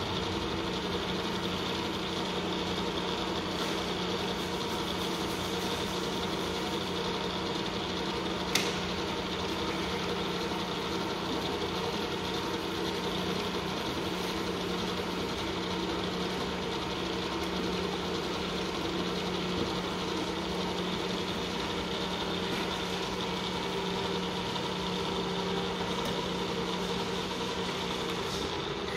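Sharp 9×42" turret milling machine running steadily, its spindle motor and head drive giving an even hum with fixed tones. A single sharp click sounds about a third of the way in, and at the very end the machine is switched off and the sound falls away quickly.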